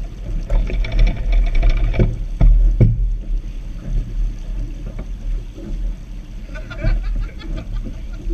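Water sloshing and slapping against a small sailboat's hull as it moves through light chop, with wind buffeting a deck-mounted action camera and a few sharp knocks about two to three seconds in.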